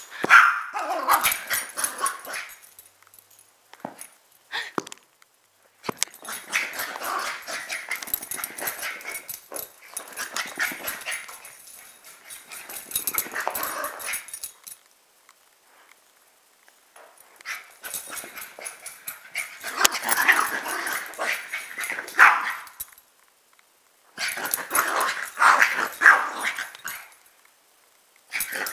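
Small dogs barking and yipping in excited play, in bursts of a few seconds with short quiet gaps between.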